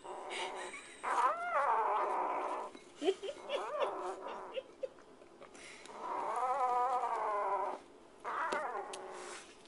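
Kitten growling and yowling with its face in a food bowl while it eats: four drawn-out, wavering calls.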